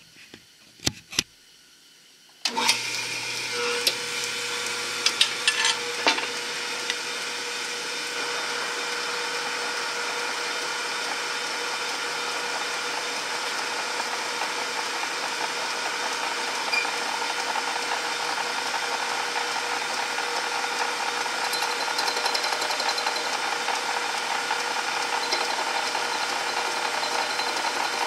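Small metal lathe switched on about two and a half seconds in and running steadily, spinning brass bar stock in a three-jaw chuck, with a few sharp clicks just before it starts.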